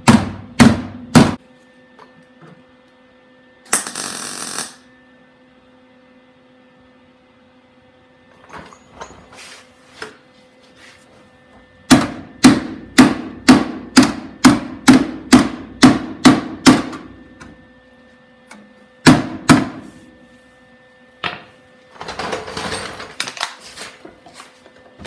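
Hammer blows on the sheet-steel inner wheel well panel of a VW Beetle, knocking it down where the rivets are not pulling it tight: a few blows at the start, a quick run of about a dozen blows at two or three a second around the middle, and a pair more later. A brief hiss about four seconds in and a faint steady hum underneath.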